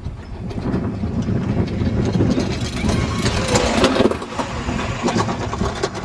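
Summer toboggan sled running fast down its trough track, with a steady low rumble and rattle. It grows loudest about three to four seconds in.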